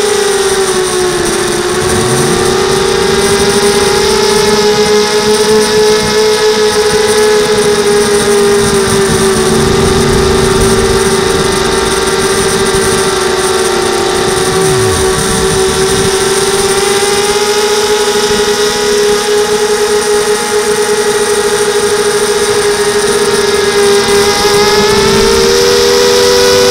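Electric motors and propellers of a small camera-carrying drone, heard from its own onboard camera: a loud, steady whine with overtones that drifts slightly up and down in pitch as it flies.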